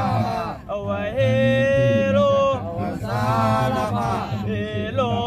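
A man chanting a Thai invocation to the boat's guardian spirit in long, drawn-out held notes, pausing briefly for breath.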